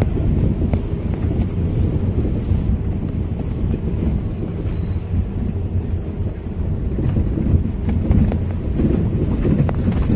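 Car cabin noise while driving on a rough dirt road: a steady low rumble of engine and tyres, with a few faint knocks.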